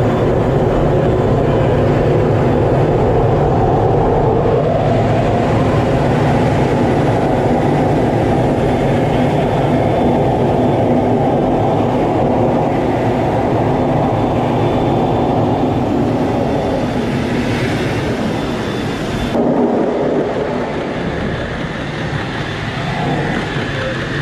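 Jet engine and airflow noise heard inside an F/A-18 Hornet's cockpit during formation flight: a loud, steady, dense rush, heaviest in the low and middle range. Near the end the sound changes abruptly and loses much of its hiss.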